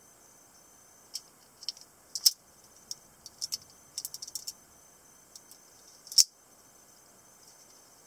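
Sharp clicks and small metallic snicks from a Finka-style folding knife's lock and blade as it is folded shut and opened again. There is a run of quick clicks in the first half, with two loudest snaps, one about two seconds in and another about six seconds in.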